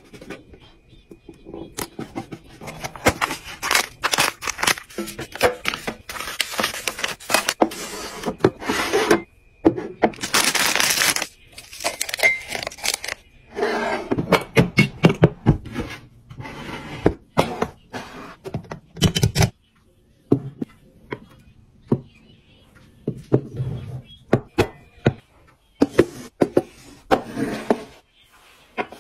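Hands handling and setting down small household items on a tabletop: a run of taps, clicks and knocks, with stretches of rustling.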